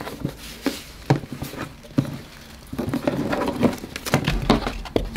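Handling a cardboard shoe box: scattered light taps and knocks of fingers on the box and its ribbon, then a denser stretch of rustling and tapping about three seconds in as the lid comes off, with a low bump near the end.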